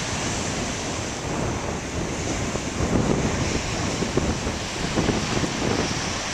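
Ocean surf breaking and washing onto the beach, a steady rush that swells a few times, with wind blowing on the microphone.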